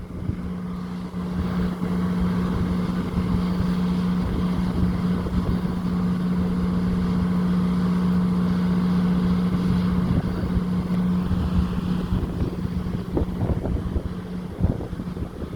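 High wind buffeting the microphone in uneven gusts, over a steady engine hum that holds one pitch.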